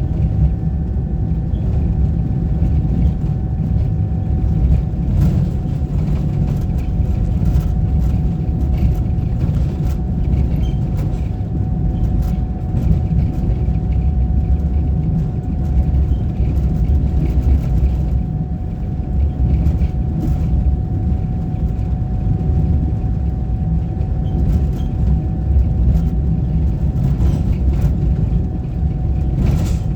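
Motor vehicle on the move: a steady, loud low rumble of engine and road noise, with a faint constant whine above it and a few light knocks.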